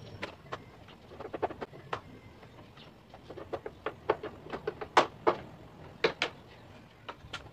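Sharp clicks in short, irregular bunches, the loudest about five seconds in, as a hand tool works on the strut-bar stabilizer bracket being fitted to a scooter.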